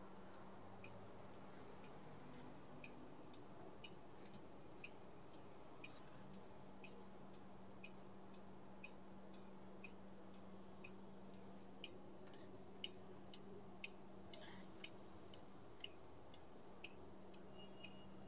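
Faint, regular ticking at about one click a second, with a few extra clicks in between, over a steady low hum.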